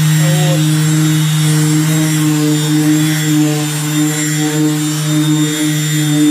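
Random orbital sander running steadily on a painted car hood, giving an even motor hum with a hiss of sanding. It is a light pass to level the clear coat before polishing.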